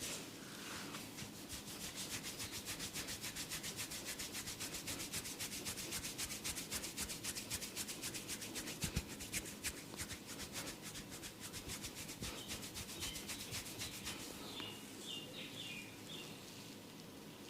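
Brisk, rhythmic rubbing strokes of a head massage, about four a second, easing off near the end.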